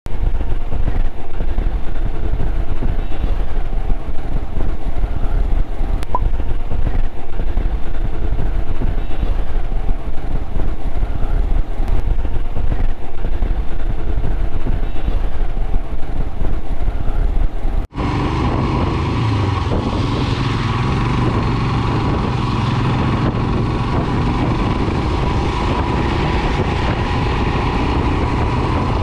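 A Royal Enfield Himalayan BS6's single-cylinder engine runs while the motorcycle is being ridden, heard from the handlebars with road noise. About 18 seconds in, the sound cuts off sharply and resumes steadier and brighter.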